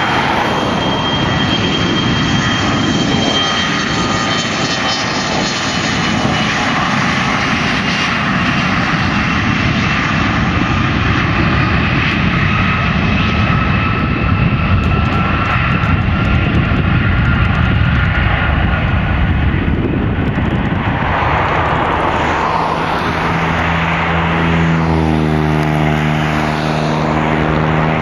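Canadair CRJ-900ER's two rear-mounted General Electric CF34-8C5 turbofans at takeoff thrust: a loud, steady jet roar with a high whine through the takeoff roll and liftoff. Near the end the roar takes on a hollow, rising sweep as the jet climbs away.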